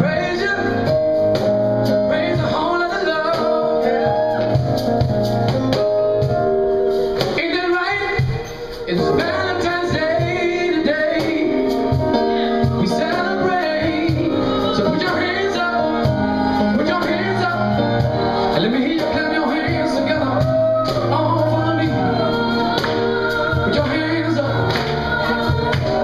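A live band with male and female singers performing a song into microphones, with sustained sung notes over the accompaniment. The sound drops briefly about eight seconds in.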